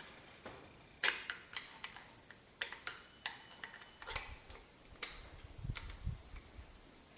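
Irregular light metallic clicks and taps of hand tools working on small-block Chevy 350 engine parts, a dozen or so scattered through, some ringing briefly, with a few dull thumps around the middle.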